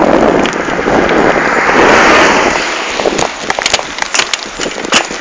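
Wind rushing over the microphone and tyre noise of a bicycle rolling on pavement, with scattered rattling clicks from the camera and bike. The rush swells louder about two seconds in, then eases.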